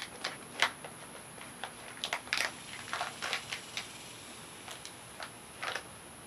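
A paper bag rustling and a small measuring spoon clicking as they are handled, in scattered short rustles and ticks.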